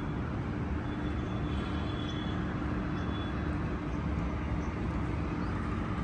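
Steady low outdoor background rumble with a faint, steady hum running through it.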